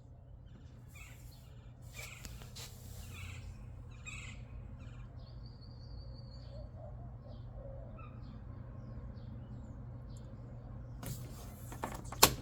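Faint scattered bird chirps over a low steady hum, with one sharp click shortly before the end.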